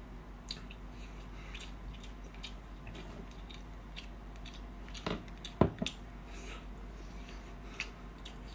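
Quiet eating sounds from picking at a cooked brown crab: scattered soft clicks of shell and meat being handled, with one sharper snap or knock a little past halfway, over a steady low hum.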